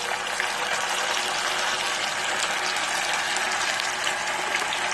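Tofu sizzling as it fries in hot oil in a pot: a steady crackling hiss.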